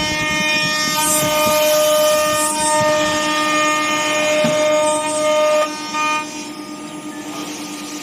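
CNC nesting router running. The spindle gives a steady high whine over the noise of cutting, and the sound drops off about six seconds in.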